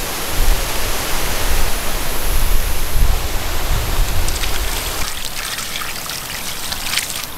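Steady rush of running, splashing water, with a few sharp clicks in the last few seconds.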